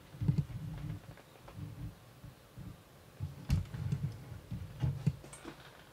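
Irregular light knocks and bumps with a few sharper clicks, the loudest click about three and a half seconds in: metal tools and parts handled on a wooden workbench.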